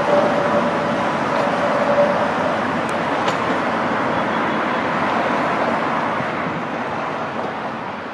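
A CKD Tatra tram and road traffic passing, a steady hum of traffic noise with a high steady whine that fades out about two seconds in; the traffic noise slowly eases toward the end.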